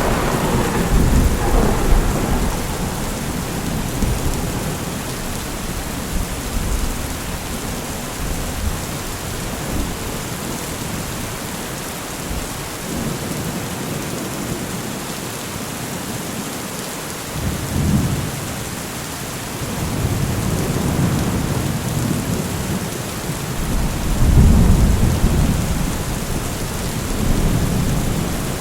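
Steady heavy rain with thunder rolling repeatedly: a rumble right at the start, a short one about 18 s in, and longer rolls building from about 20 s to the loudest around 25 s.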